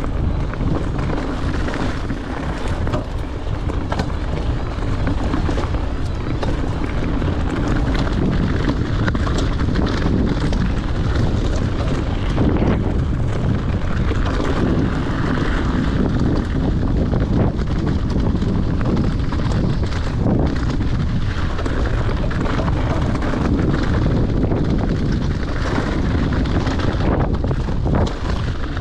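Wind rushing over the camera microphone and mountain bike tyres rolling over rocky gravel singletrack, with frequent clicks and knocks from the bike jolting over bumps.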